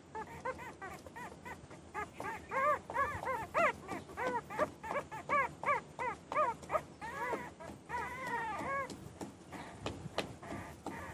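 Newborn puppies crying and whining: a quick series of short high squeals, each rising and falling in pitch, with a few longer drawn-out cries about two-thirds of the way in.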